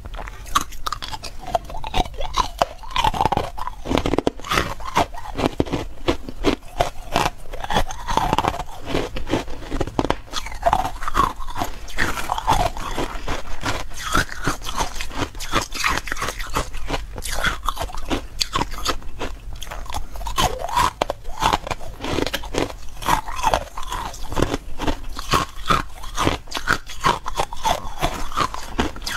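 A person biting and chewing chunks of carbonated ice close to the microphone: dense, continuous crunching as the bubbly, brittle ice breaks apart between the teeth.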